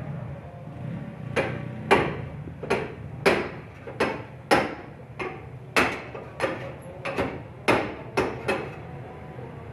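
Hammer striking sheet metal, as in panel beating a dented car body panel: a run of about fifteen sharp blows at roughly two a second, starting about a second and a half in.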